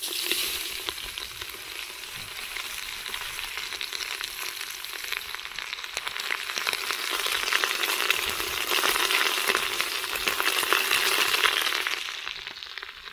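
Chopped carrots, potatoes and onions sizzling in hot oil in a cast-iron cauldron, starting the moment they drop into the pot. The sizzle grows louder about two-thirds of the way in, then dies down near the end.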